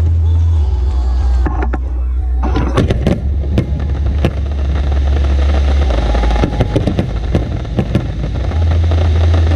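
Aerial fireworks bursting: a string of sharp cracks and bangs over a continuous deep rumble, the cracks coming thickest about three seconds in and again about seven seconds in.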